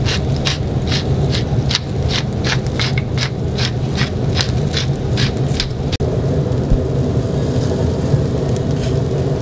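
Bacon-wrapped skewers sizzling on a charcoal grill over a steady low hum. Short crisp crackles come about three a second for the first six seconds, then more sparsely.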